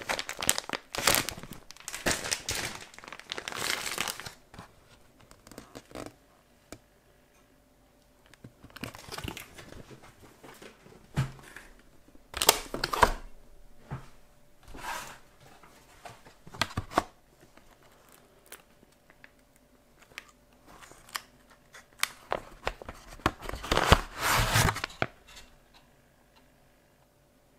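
Plastic food packaging crinkling and rustling as it is handled, in irregular bursts. The bursts are strongest in the first few seconds and again near the end.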